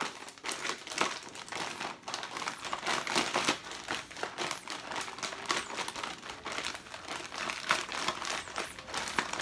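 Plastic bag of deviled egg filling being squeezed and kneaded by hand to mix it. The bag crinkles and crackles continuously throughout.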